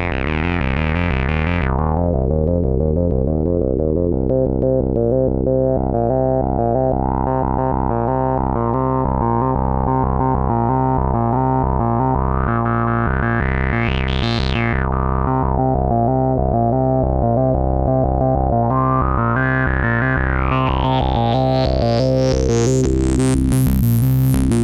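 Behringer MS-1 analog monophonic synthesizer playing a fast repeating note pattern. Its resonant filter is swept by hand: the sound goes dull about two seconds in, then opens into a rising and falling whistle that peaks twice, highest near the end.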